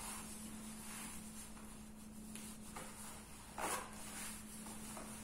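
Faint rustling of clothing as trousers are pulled on and fastened at the waist, with one short, louder rustle about three and a half seconds in, over a steady low hum.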